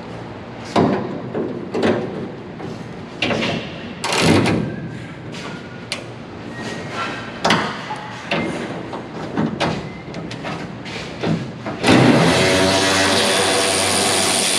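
Metal tools and parts knocking and clanking on the truck's frame, roughly once a second, then about twelve seconds in a steady whirring power tool starts up, louder than the knocks.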